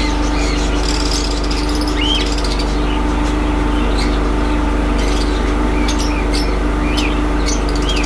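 Cockatiels giving short chirps and rising calls, several times, over a steady hum.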